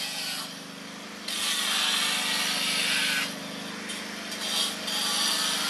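A power tool grinding into sandstone in loud bursts of hissing noise that start and stop abruptly, once for about two seconds and again near the end, over a steady low machine hum.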